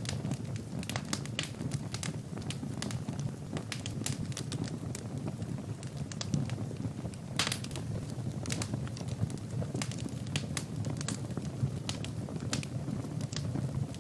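Wood fire burning in a fireplace: a steady low roar of the flames with irregular sharp crackles and pops of burning logs, several a second.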